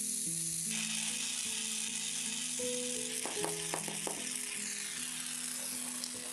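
A small gas torch hissing steadily while it heats a silver-steel reamer red-hot for hardening, over soft background music with slow held notes. A few light clicks come about halfway through.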